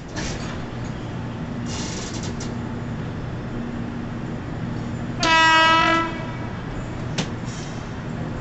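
Passenger train coach rolling slowly along the track with a steady rumble, and one short blast of a train horn about five seconds in. A sharp click of the wheels on the rails follows a little later.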